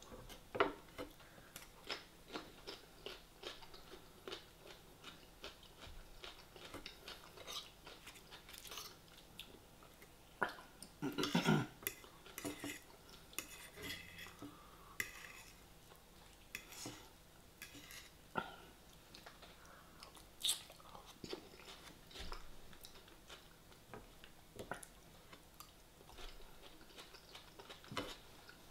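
A metal fork clinking and scraping on a ceramic plate over and over, with close-miked chewing of mouthfuls of food. The clinks come as many short, separate hits, with a louder cluster about eleven seconds in.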